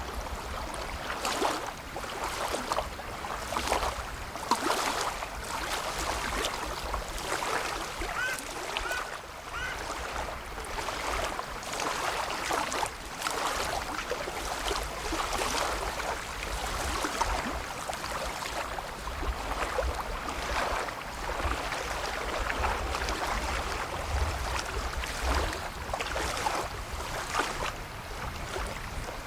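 Lake water lapping and splashing, irregular and continuous, with wind rumbling on the microphone.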